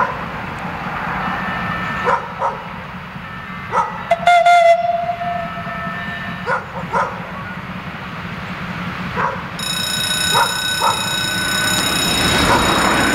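A diesel locomotive running with a steady low rumble while a dog barks in short pairs. About ten seconds in, a steady high-pitched whine joins in as the locomotive comes closer.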